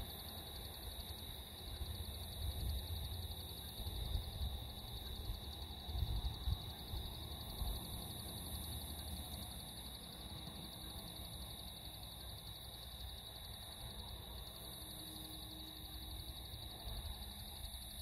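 A steady, high-pitched chorus of insects trilling at dusk, with a second, even higher trill above it. Low rumbles come and go during the first seven seconds or so.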